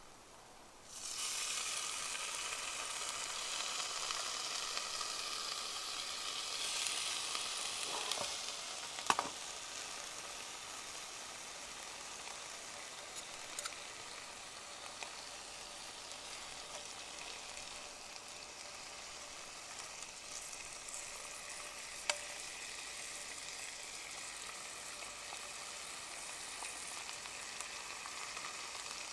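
Food dropped into a hot pan about a second in and frying with a steady sizzle, loudest for the first several seconds, then settling lower. A few sharp ticks and pops sound along the way, the strongest about nine seconds in.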